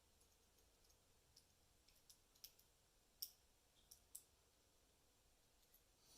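Faint, scattered small clicks and ticks, clustered in the middle with the sharpest one a little past three seconds in: small parts of a lock cylinder being handled during disassembly.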